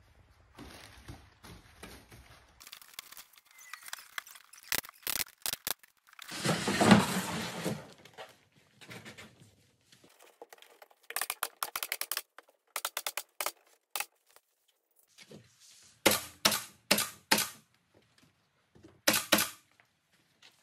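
Pneumatic staple gun driving staples into a corrugated cardboard box, sharp shots in quick runs of several at a time. About six seconds in there is a loud scraping rustle lasting a second or two.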